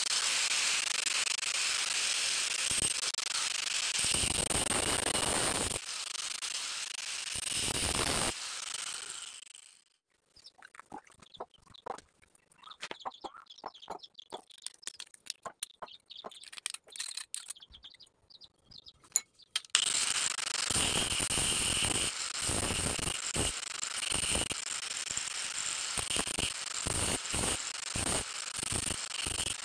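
Electric angle grinder running and cutting through copper pipe for about ten seconds. Then a steel hand file scrapes the cut copper ring in quick strokes, louder from about two-thirds of the way in.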